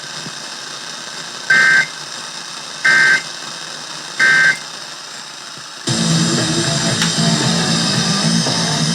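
Emergency Alert System end-of-message signal: three short bursts of two-tone digital data warble, evenly spaced, over steady radio hiss. About six seconds in, music comes in, then cuts off suddenly near the end.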